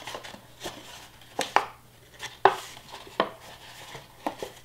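Cardstock milk box being folded by hand, its flaps pushed and tucked into place: soft papery rustling with about five sharp snaps and taps of the card, the loudest about two and a half seconds in.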